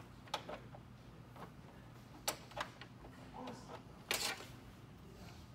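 Screwdriver working the top screws of a Xerox C60 copier's toner-bay frame as they are loosened: a few sharp metallic clicks and a brief louder scrape about four seconds in, over a faint steady hum.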